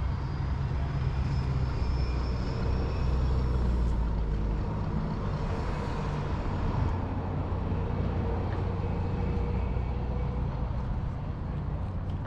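Traffic passing close by: a steady low rumble of engines and tyres with a faint higher whine.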